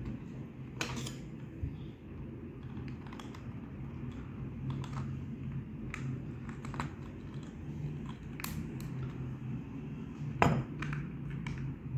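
Scattered light clicks and taps of a screwdriver and fingers on the small plastic controller box and the wires of a string of lights, over a steady low hum.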